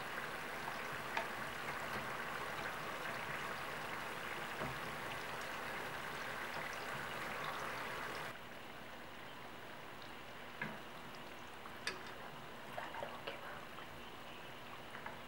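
Murukku deep-frying in hot oil, a low, steady sizzle of dying-down bubbles: the quieting frying sound is the sign the murukku is nearly cooked, ready to turn and then to lift out. About eight seconds in it drops to a fainter sizzle, with a few light clicks near the end.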